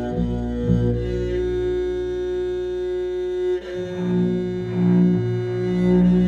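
Cello bowed in long, sustained low notes alongside a bass koto. A little past halfway the low notes change to a new pitch and swell in and out.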